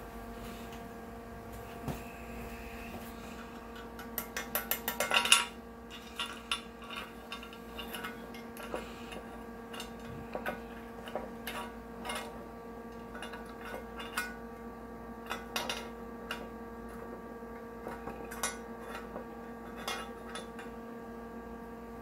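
A metal washer clinking and scraping against the front output shaft bearing in a Jeep NP231 transfer case's cast aluminium housing as it is fitted and turned by hand. A quick rattle of clinks about four to five seconds in is the loudest part, then scattered light clicks follow. A steady hum runs underneath.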